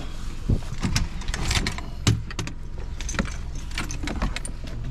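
Knocks, clicks and clatter of spearfishing gear (spearguns, fins, floats) being handled and pulled out of a car, over a steady low rumble.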